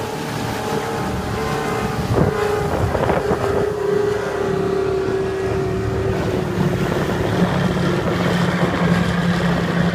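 Speedboat engines running at speed across the water, a steady drone whose pitch dips slightly a few seconds in, with a lower engine note growing louder in the second half. Wind buffets the microphone.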